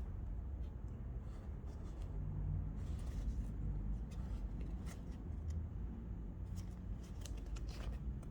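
Hand-sewing a jeans zipper: light rustling and scratching of denim and thread being worked, with scattered small clicks over a low steady hum.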